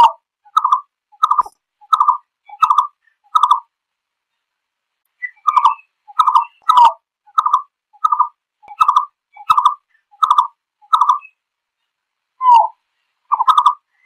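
Green-billed malkoha calling to its flock: short, evenly spaced notes at about one and a half a second. A run of six is followed by a pause of about two seconds, then a run of about nine, and a few more notes near the end.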